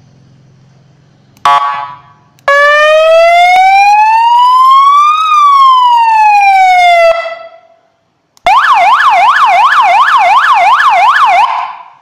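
Three-mode electronic siren horn run through its tones: a short horn blast, then one slow wail that rises and falls over about four and a half seconds, and after a pause a fast yelp sweeping up and down about four times a second.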